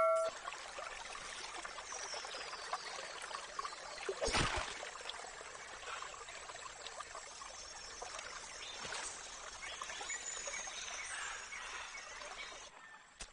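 Shallow river water trickling and flowing steadily, with one sharp splash about four seconds in as a spear is jabbed into the water to spear a fish. A few faint high chirps sound over the water.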